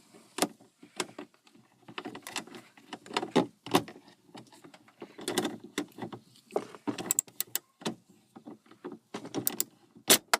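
Hands working on a Toyota Corolla's plastic dashboard trim, fitting small bolts back in: irregular clicks, knocks and short scrapes of plastic and metal parts.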